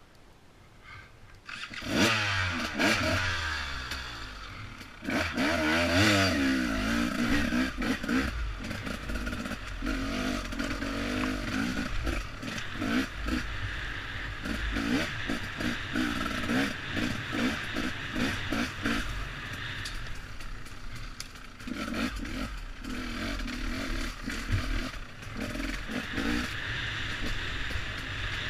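2015 Husqvarna TE300 two-stroke single-cylinder enduro motorcycle engine, quiet at first, then coming in loudly about two seconds in and revving up and down as the bike is ridden along a forest trail. The bike's chassis clatters and knocks over the rough ground.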